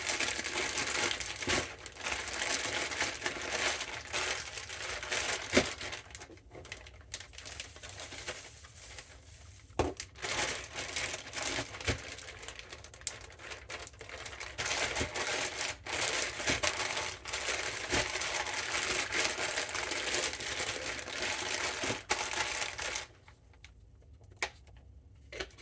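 Raw chicken being coated in flour by hand: crinkly rustling and rubbing in stretches of several seconds, with a few light knocks. It stops about 23 seconds in.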